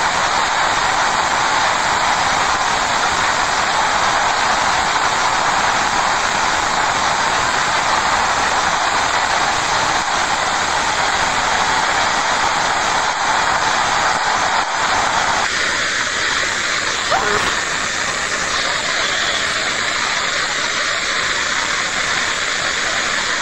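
Fast-flowing floodwater rushing and churning beneath a bridge, a steady loud noise of torrential water; its tone turns thinner about fifteen seconds in.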